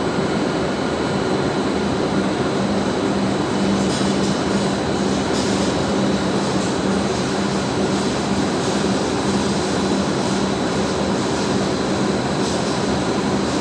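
W7 series Shinkansen standing at the platform, its onboard equipment giving a steady hum with a low tone.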